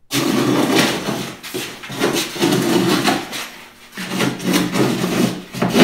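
Repeated rasping, rubbing strokes of hand work on the edge of cured fibreglass cloth and epoxy along a cedar-strip canoe's gunwale, as the sharp cloth edge at the sheer line is trimmed and smoothed. A low steady hum comes in about four seconds in.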